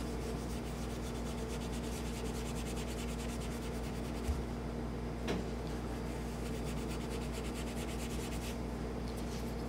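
Steel wool rubbing back and forth over a gun-blued steel pistol slide, blending in fresh touch-up bluing from a gun blue pen.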